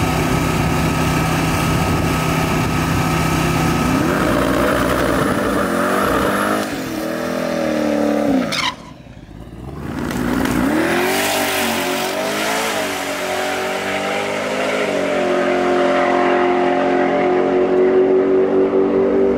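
Twin-turbocharged C7 Corvette V8 drag car running: a steady idle for a few seconds, then revs rising and falling, a sudden drop-out a little before halfway, more revving, and a steady note that climbs slowly near the end.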